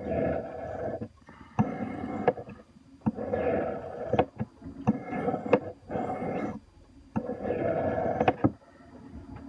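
Knife blade drawn across a Smith's Arkansas sharpening stone in about six finishing strokes forward and backward along the edge, each a scraping swipe of about a second with short pauses and small clicks as the blade sets down or lifts off.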